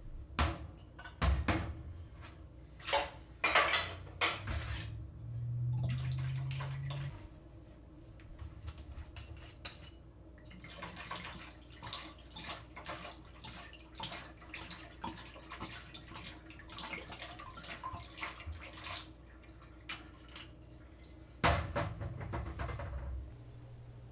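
Kitchen handling sounds: glass bottles and dishes clinking and knocking against a counter, in many short sharp knocks, with a short stretch of running liquid about five seconds in and a louder cluster of knocks near the end.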